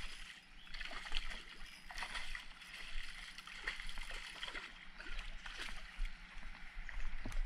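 Hooked smallmouth bass splashing and thrashing at the surface as it is brought in close, with the river water sloshing in short irregular bursts.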